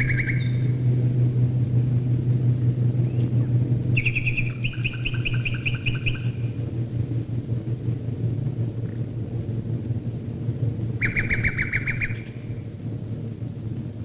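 A nightingale sings short phrases of rapid repeated notes at the start, about four seconds in, and again about eleven seconds in. Beneath it runs the steady low drone of a stream of Wellington and Lancaster bombers' piston engines flying overhead, which eases slightly near the end.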